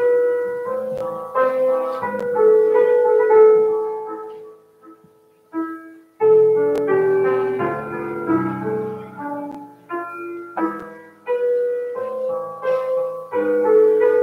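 Piano playing a slow, hymn-like prelude in chords, each note struck and fading away. The playing pauses for about a second and a half near the middle, then carries on.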